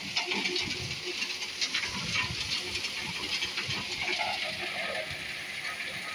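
Wet gravel and stones pouring off the discharge chute of a trommel screen onto a pile: a steady rushing hiss with many small rattles and knocks of falling stones.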